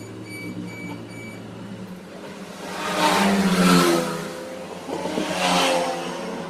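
Motor vehicles passing by, their engine pitch rising and falling, with two louder swells about three and five seconds in.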